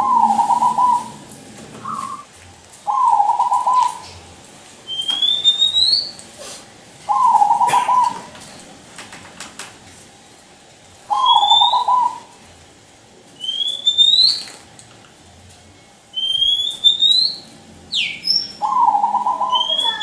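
Zebra dove singing: a rapid, stuttering coo phrase, about a second long, repeated five times. Short, high rising chirps come between the phrases several times.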